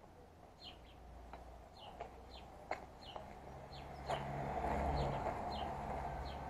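A small bird chirping over and over, short high chirps about twice a second, with a few faint clicks. About four seconds in, a low noise swells up behind the chirps.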